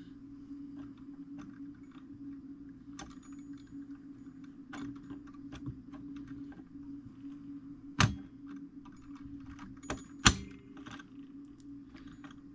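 Light scattered clicks and taps from handling a fusee clock movement and its brass wire, with two sharper knocks about eight and ten seconds in, over a steady low hum.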